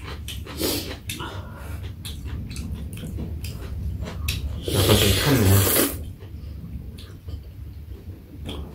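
Eating at the table: metal spoon and chopsticks clicking against metal and ceramic bowls, and a loud slurp of soup and pumpkin leaves from about five seconds in, lasting about a second.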